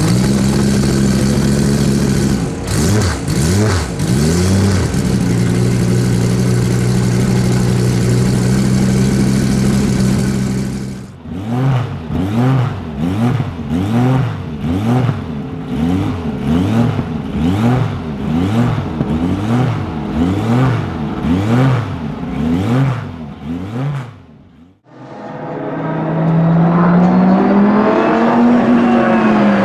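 Chrysler Viper GTS-R race car's V10 engine idling with a few short throttle blips, then revved in a run of quick blips about once a second. After a cut, the car is running at speed on the circuit, its engine note rising and then easing.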